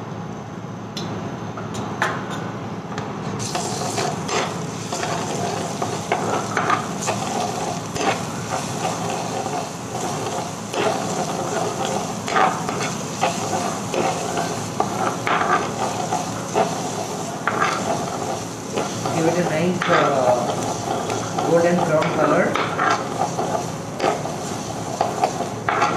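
Finely chopped food frying in olive oil in a nonstick frying pan with a steady sizzle that sets in a few seconds in. A stainless steel ladle stirs and scrapes it, making repeated scrapes and clinks against the pan.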